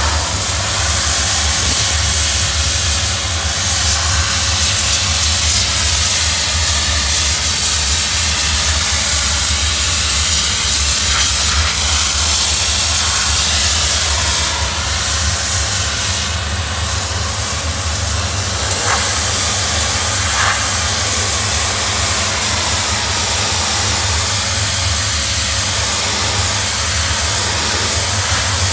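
Doff superheated steam cleaning lance spraying steam onto patio paving slabs as a steady, loud hiss, with a steady low hum underneath. It is the sound of black spots being stripped off the slabs by high-temperature steam, with no chemicals.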